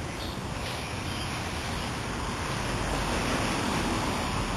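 Steady rushing noise of wind on the microphone, swelling a little past the middle.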